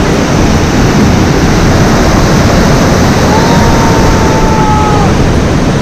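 Loud, steady rush of water pouring out beneath a dam's sluice gate, mixed with wind on the microphone. A faint thin whistle-like tone holds for about two seconds in the middle.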